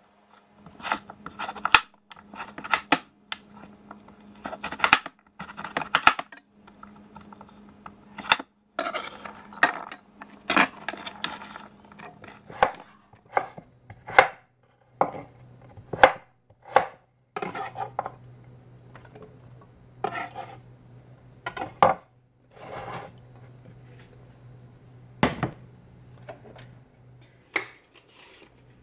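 Kitchen knife chopping a peeled sweet potato on a wooden board: a run of sharp, irregular knocks, roughly one a second, as the blade cuts through and strikes the board.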